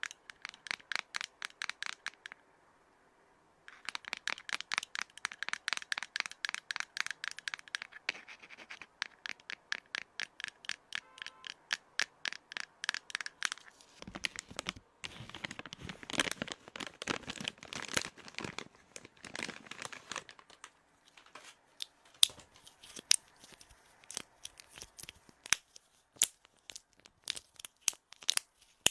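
Stones rubbed and scraped together close to the microphone in quick repeated strokes, about five a second, with a short pause a little over two seconds in. In the last third the strokes thin out into sparser, sharper clicks and knocks.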